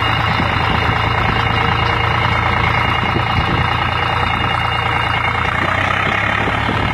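An engine running steadily under a constant rushing noise.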